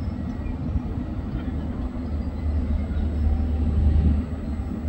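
Wind buffeting a phone's microphone: a low, uneven rumble that grows louder about two and a half seconds in, then eases.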